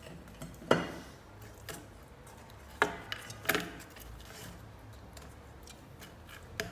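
A few sharp knocks and clinks of cookware and utensils being handled, three of them louder than the rest.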